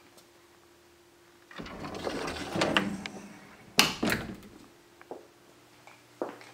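Something in a storage closet is slid and pushed shut: a rubbing slide lasting about a second and a half, then a sharp knock and a weaker second knock.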